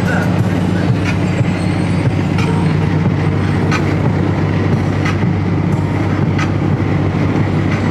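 Steady low drone of engine and tyre noise inside a car moving at highway speed.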